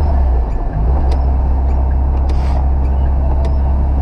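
Cabin drone of a square-body VW Gol 1.6 CHT's engine and tyres on a wet road while driving. The drone dips and shifts briefly under a second in, and the windscreen wipers give a light tick about once a second.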